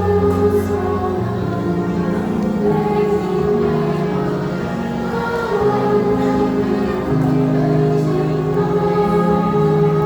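A choir singing in several-part harmony, holding sustained chords that move from one to the next every second or two.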